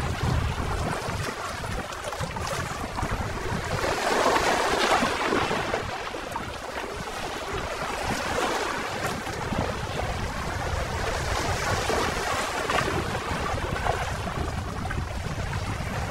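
Small sea waves washing over shoreline rocks, the noise swelling in surges every few seconds, with wind rumbling on the microphone.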